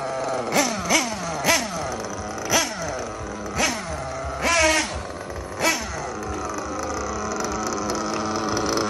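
O.S. Speed Adam Drake edition .21 nitro engine in an HB D817 buggy, revved in a string of short throttle blips. Each blip rises sharply and winds back down, with one longer high burst about halfway through. For the last three seconds the engine settles to a steady idle.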